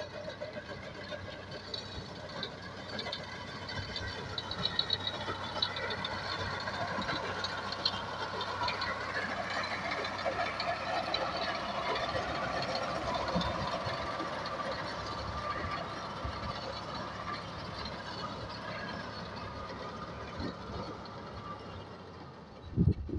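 Al-Ghazi tractor's diesel engine running steadily under load as it pulls a reaper cutting standing wheat. It grows louder and a little higher in pitch as the tractor comes close about halfway through, then fades as it moves away.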